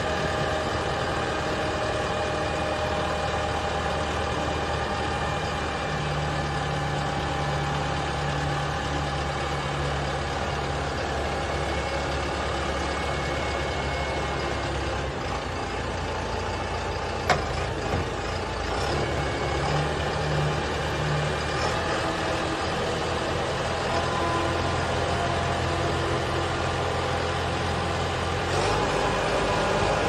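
Diesel engine of a self-loading concrete mixer running steadily as the machine works, its pitch shifting a couple of times. A single sharp click just past halfway.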